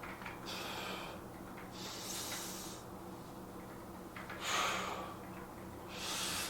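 A man breathing hard through the mouth after weight-training exertion: four loud, hissy breaths about a second and a half apart, the loudest about four and a half seconds in.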